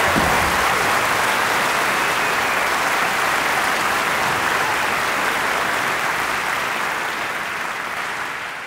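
Audience applauding, a steady dense clapping that thins and tapers off near the end.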